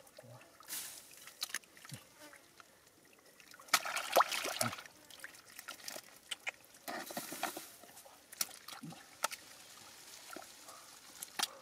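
Hands groping through wet paddy mud and water: irregular squelching and sloshing with scattered sharp clicks. The loudest burst comes about four seconds in, another about seven seconds in.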